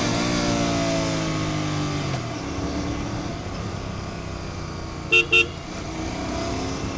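Royal Enfield Continental GT650's 648 cc parallel-twin on its stock exhaust while riding, its note falling in pitch over the first two seconds and then settling lower, over road noise. About five seconds in, a vehicle horn gives two short toots.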